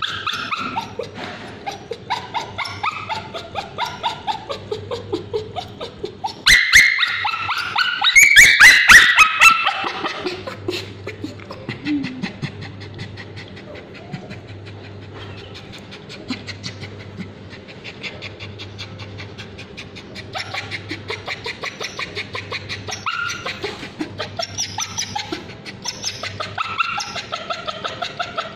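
Male Bichon Frise whimpering and screaming in quick, high-pitched cries while ointment is applied to his scabies-sore tail. The screams are loudest for a few seconds from about seven seconds in, then ease into softer whining.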